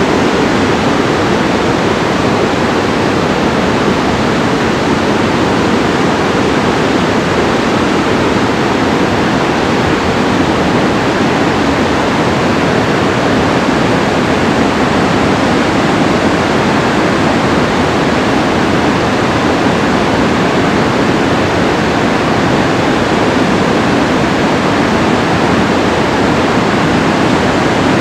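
Steady, loud rush of a river pouring through a rocky canyon.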